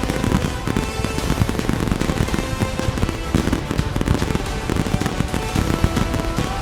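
Fireworks going off in rapid succession, many overlapping bangs and crackles, over loud accompanying music.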